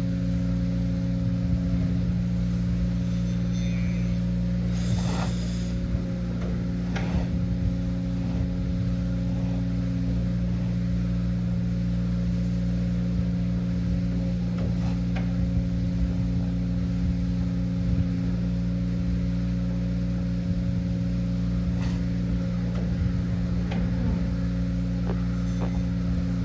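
A steady mechanical hum made of several constant low tones, with scattered faint knocks and rustles over it.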